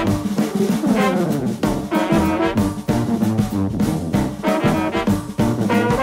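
Jazzy background music with brass horns over a steady drum beat.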